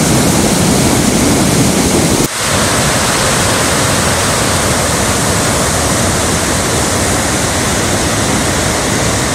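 Loud, steady rushing of river rapids in spring flood: high, brown meltwater foaming over rock ledges. The sound dips briefly about two seconds in.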